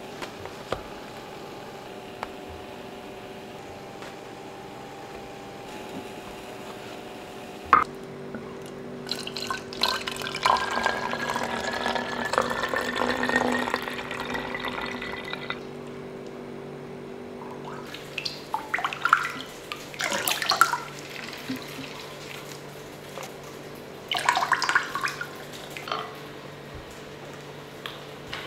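Juice poured in a stream into a clear plastic bottle, a splashing pour whose pitch rises steadily as the bottle fills. Later come two shorter bursts of clinking and handling noise from the bottles.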